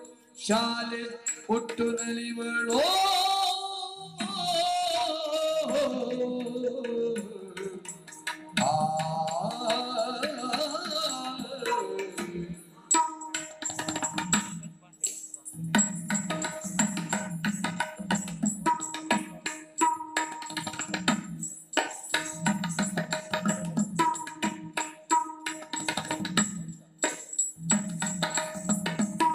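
Live Yakshagana music: a singer's long, sliding vocal phrases over a held drone for about the first twelve seconds, then the drums take over in a fast, even rhythm with the drone held underneath.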